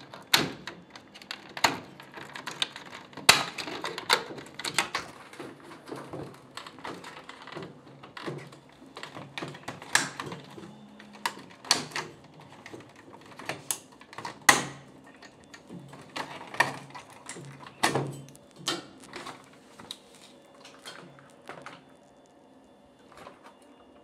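Irregular clicks, taps and knocks of plastic and metal from handling a washing machine's plastic control-board housing against its sheet-metal frame, thinning out near the end.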